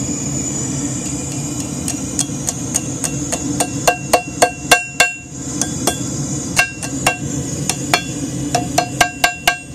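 Hand hammer striking hot 3/16-inch mild steel round stock on an anvil, bending the point of a forged coat hook to a right angle. Quick blows start about two seconds in, in runs of about three a second with a short pause midway. Most leave a bright ring from the anvil, over a steady background hum.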